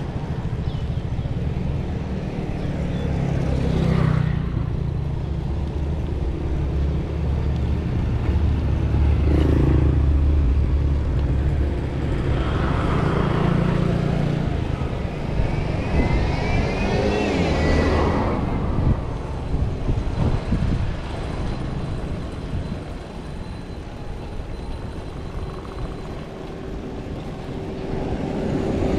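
Road traffic: vehicles passing over a steady low rumble, with a short rising whine about sixteen seconds in.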